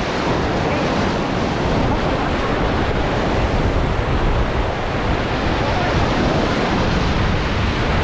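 Rushing whitewater of a river rapid around a raft, a loud steady churn, with wind buffeting the microphone.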